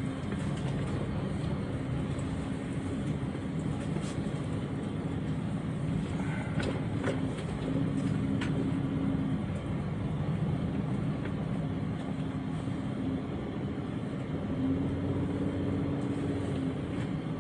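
A running vehicle: a steady low hum with road or engine noise, and a few faint ticks about halfway through.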